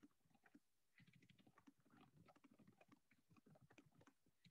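Near silence with very faint computer keyboard typing: many soft, irregular key clicks.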